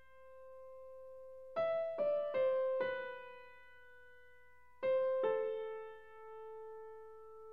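Background music: a slow piano melody, single notes struck in small groups and left to ring out, four in quick succession in the first half and two more later.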